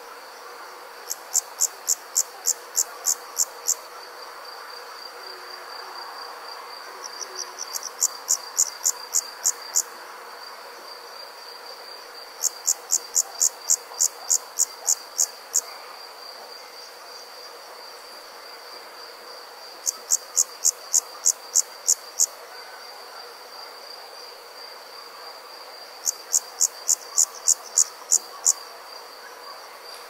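Summer night insects: a steady high-pitched trill runs throughout, and over it a louder insect call sounds in bursts of about eight quick chirps, roughly three to four a second. The bursts come five times, one every five to seven seconds.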